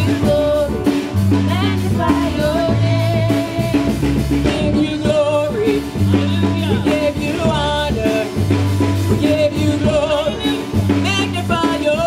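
Worship music: voices singing over a band with a steady drum beat and a low bass line.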